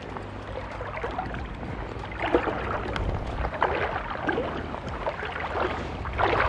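Shallow stream water splashing and sloshing as an angler wades and reaches into it by hand. Louder splashes come about two, three and a half, and six seconds in, over a steady low rumble.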